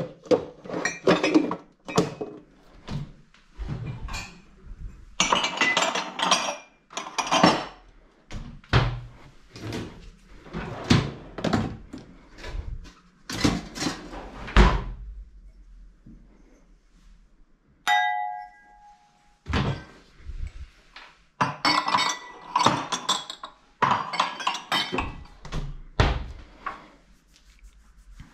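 Crockery and glassware being handled: glasses and mugs clinking on a cupboard shelf, and knocks and thunks of plates and dishwasher racks, in a run of separate strikes with a pause partway through. A short electronic beep sounds about eighteen seconds in.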